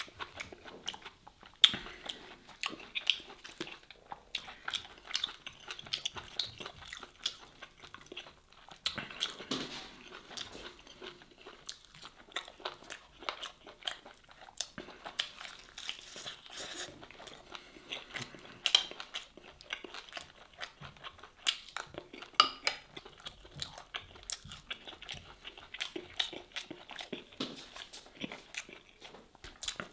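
Close-miked mouth sounds of a person biting and chewing smoked beef short rib meat, an irregular stream of small clicks with a few sharper, louder ones scattered through.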